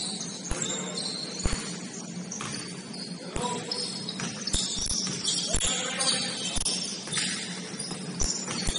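Basketball game on a gym court: a ball bouncing about once a second at first, then more often, with sneakers squeaking on the floor and players' voices. A steady low hum runs underneath.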